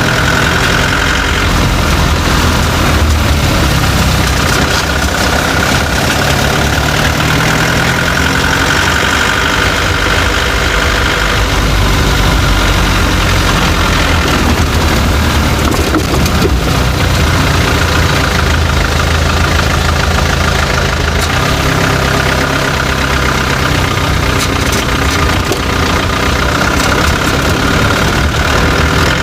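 Chevrolet Tavera running, its steady engine noise the loudest sound, with an intermittent knocking rattle (khatpat) from underneath the vehicle that only comes through here and there. The knock is a fault that ten mechanics have not been able to trace.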